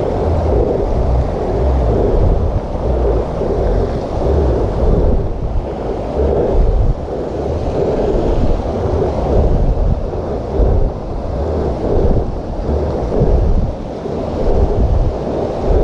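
Wind and movement noise on a body-worn camera's microphone during walking: a loud, muffled low rumble that pulses about once a second.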